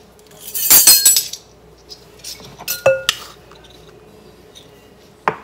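Metal measuring spoons on a ring jangling and clinking while a teaspoon of salt is scooped from a wooden salt cellar. There is a clatter about a second in, a few sharp metallic clinks around three seconds, and one more click near the end.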